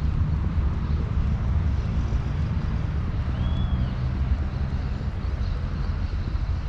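Steady low outdoor rumble, with one short chirp that rises and falls about halfway through.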